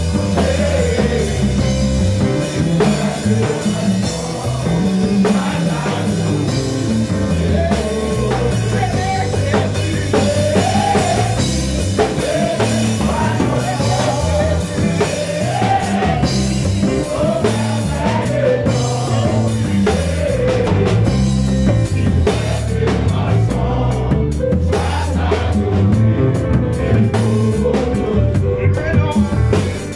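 Live praise-and-worship music: men's voices singing a melody over an electric bass walking through its notes and a drum kit with steady cymbal strokes.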